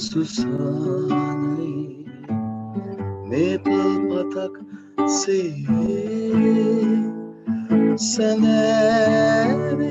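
Nylon-string classical guitar played solo, with chords and melody notes plucked and strummed.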